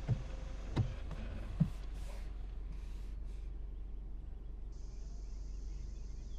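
Quiet car interior: a steady low hum, with three soft thumps in the first two seconds, then brief rustling and a faint steady hiss near the end.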